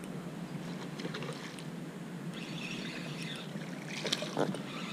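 Small tarpon hooked on a topwater lure and splashing at the water's surface as it is reeled in on a baitcasting reel, with a few sharp splashes about four seconds in.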